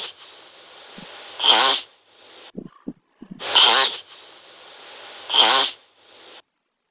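Turtle breathing: sharp, hissing exhalations about every two seconds, each followed by a softer drawn breath, with a few low clicks near the middle; the short sequence repeats.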